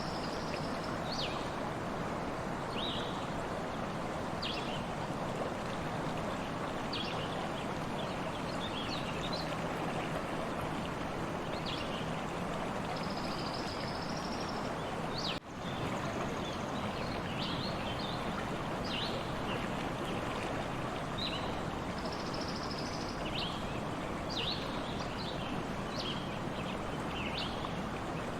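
A stream flowing steadily, with small birds chirping in short, high calls throughout. The sound drops out for a moment about halfway through.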